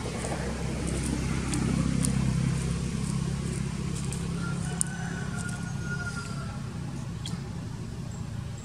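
Low, steady engine rumble, louder about two seconds in and easing off slowly after, with a few faint ticks.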